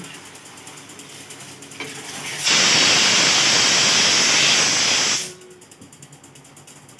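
A loud, steady hiss of steam from the cooking on the gas stove, lasting about three seconds. It starts abruptly about two and a half seconds in and cuts off just as suddenly.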